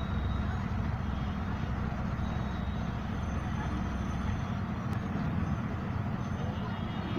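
Bus engine running with a steady low rumble, heard from inside the cabin with street traffic around it. The deepest part of the rumble drops away about four seconds in.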